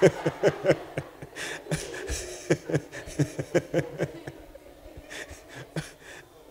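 Congregation laughing in short scattered bursts that die away over a few seconds.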